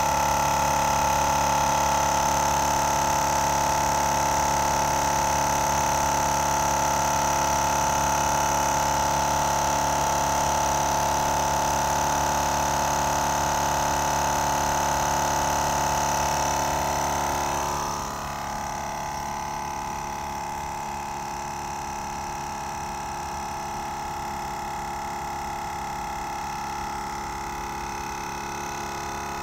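GSPSCN dual-cylinder 12V portable air compressor running steadily with a pretty quiet, even drone as it pumps air into a flat truck tire from zero pressure. The sound drops in level about two-thirds of the way through, then holds steady.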